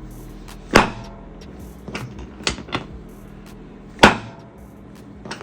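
Sharp clicks and knocks during a chiropractic knee adjustment: two loud ones about a second in and about four seconds in, with three softer ones in between.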